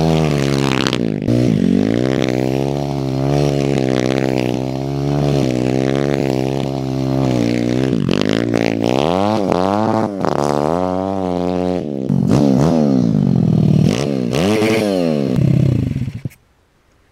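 YCF 150 pit bike's single-cylinder four-stroke engine, freshly tuned, revving hard as the bike is ridden, its pitch rising and falling about once a second, then in longer, higher sweeps. The sound cuts off suddenly near the end.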